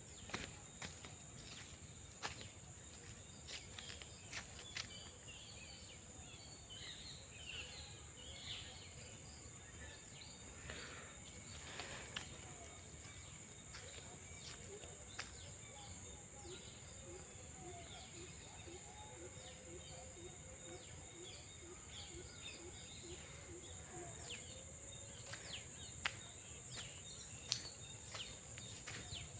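Faint nature ambience: a steady high-pitched insect drone, with scattered bird chirps and a few sharp clicks. In the middle a low call repeats evenly, about two to three times a second, for several seconds.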